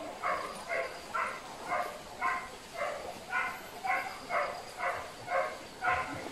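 Hunting dog barking over and over in a steady rhythm, about two barks a second.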